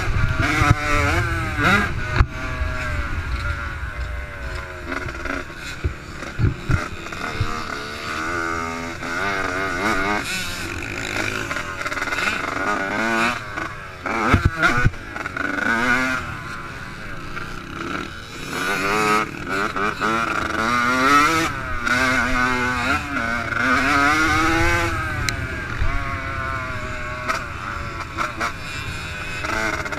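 Yamaha YZ85 two-stroke motocross engine under riding load, its pitch rising and falling over and over as the rider revs up, shifts and backs off through the track. A low rush of wind on the microphone runs underneath, with a few sharp knocks from the rough ground.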